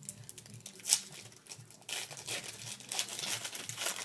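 A wrapper on a pack of trading cards being torn open and crinkled, with a sharp crack about a second in and a longer stretch of tearing and crinkling from about halfway.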